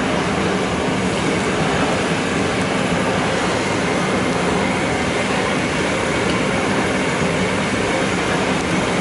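Steady rushing noise of a large gas burner under a kadai of oil, with chopped okra deep-frying in it.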